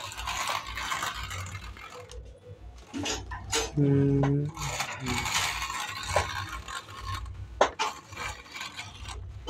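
Plastic toy tractor and trolley pushed by hand over a cloth bedsheet: the wheels roll and rattle with a scraping sound and scattered clicks and knocks.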